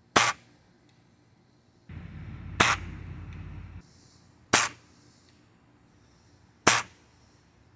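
Four sharp cracks, evenly spaced about two seconds apart, with about two seconds of rushing noise around the second one.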